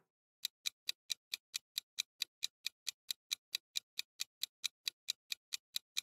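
Clock-ticking countdown timer sound effect: quick, even ticks, about four and a half a second, beginning just under half a second in.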